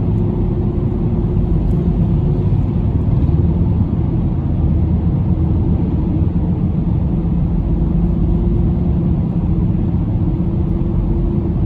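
Steady low rumble of a car cruising along an expressway, tyre and engine noise heard from inside the cabin.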